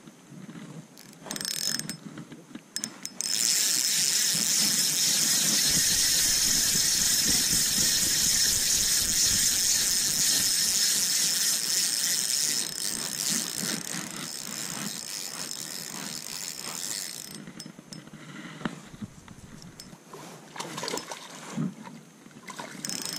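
Spinning reel being cranked: a steady whir of the reel's gears from about three seconds in, running for about fourteen seconds, with a few clicks of handling before and after.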